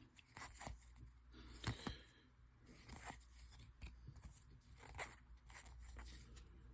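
Faint scratchy flicks of baseball trading cards being slid and flipped one by one through a freshly opened pack, a few separate flicks spread across the stretch.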